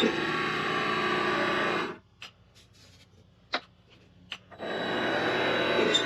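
Vevor MX 400 mini lathe running with a steady motor whine. About two seconds in the sound drops out abruptly to near silence, with a few sharp clicks in the gap, and comes back just as suddenly about four and a half seconds in.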